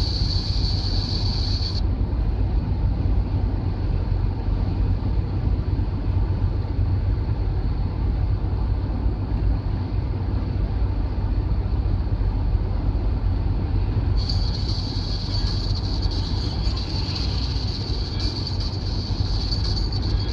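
Steady drone of a vehicle driving at motorway speed, heard inside the cabin: a deep engine-and-road rumble with tyre noise. A thin high hiss over it stops about two seconds in and comes back about six seconds before the end.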